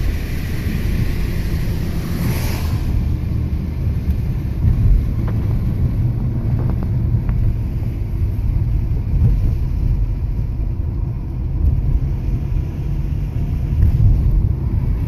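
Steady low rumble of a car driving on a wet road, heard from inside the cabin, with a brief hiss of tyre spray about two seconds in as an oncoming vehicle passes.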